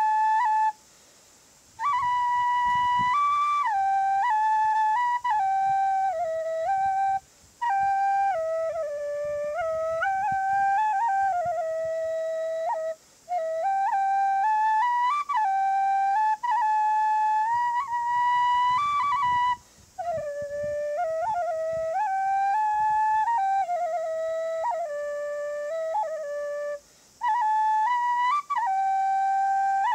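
A Thai khlui, the vertical duct flute, playing a solo melody in phrases broken by short pauses, with quick ornamental flutters on some notes.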